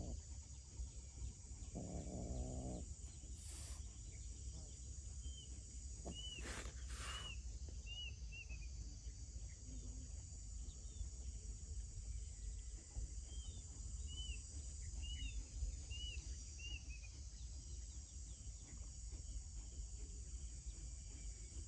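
Outdoor ambience: a steady high insect-like hiss over a low rumble, with runs of short high chirps coming and going. A brief low call sounds about two seconds in, and a few sharp clicks come a few seconds later.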